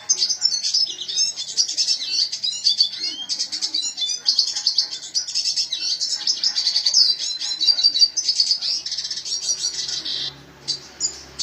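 Red siskin singing a long, fast stream of high twittering chirps and trills, pausing briefly near the end.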